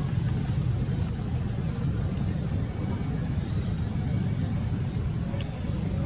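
Steady low rumble of outdoor background noise, with a single sharp click near the end.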